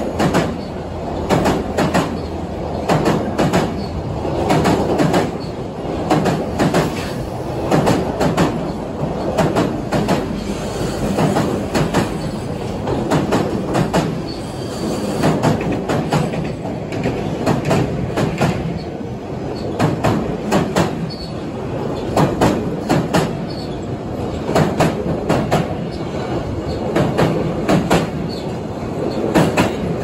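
Container freight train's flat wagons rolling past close by, the wheels clattering over rail joints in a steady, repeating clickety-clack over a continuous rumble.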